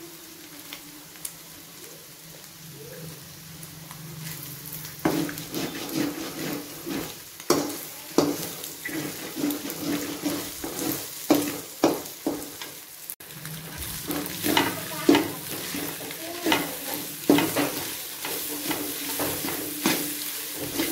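Eggs and vegetables sizzling in a metal kadai. From about five seconds in, a metal spatula scrapes and knocks against the pan over and over as the frying egg is broken up and stirred.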